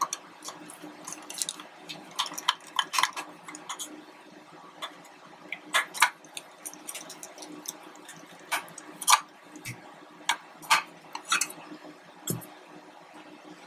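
Phillips screwdriver backing screws out of the metal cover on a laser engraver's X-axis motor carriage: scattered light clicks and ticks of the driver bit and loose screws, with a couple of soft knocks near the end as the cover is lifted off.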